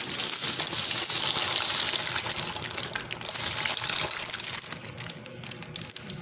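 Dry macaroni pouring from a plastic bag into a pot of boiling water: a rushing, rattling hiss as the pasta hits the water, easing off after about four and a half seconds, leaving the pot bubbling.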